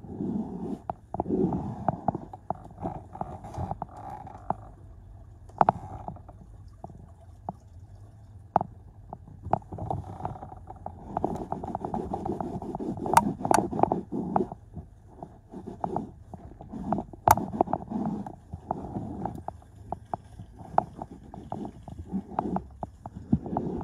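A car's floor carpet being scrubbed by hand with a cloth: irregular rubbing and scuffing strokes in uneven bursts, with a few sharp clicks.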